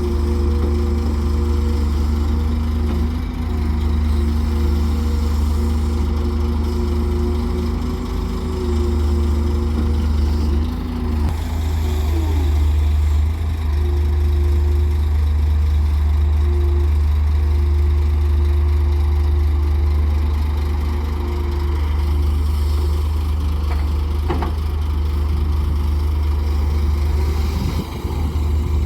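Heavy diesel engine of an excavator loading mud into a truck, running steadily with a low drone and a hum whose pitch shifts about eleven seconds in. There is one short knock about 24 seconds in.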